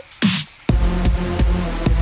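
Electronic dance music with a heavy bass beat and a swept noise riser, in a dubstep style.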